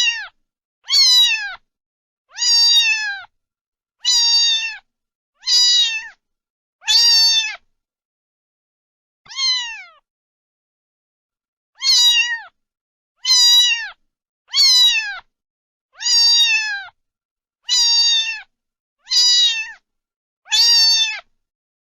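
Domestic cat meowing over and over, about a dozen high-pitched meows of under a second each, every one falling in pitch at the end, with a pause near the middle broken by one weaker meow.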